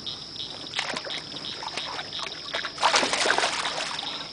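Water splashing in a louder burst about three seconds in, with a smaller splash near the start, over insects chirping steadily in regular high pulses.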